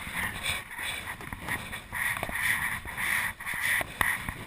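Rushing water of shallow river rapids around a canoe, with wind rumbling on the microphone and a few sharp knocks, the canoe or paddles striking as it runs the rapid.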